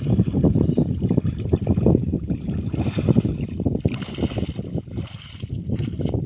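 Wind buffeting the microphone in an uneven low rumble, over water sloshing around a person's legs as he wades through a shallow muddy pond.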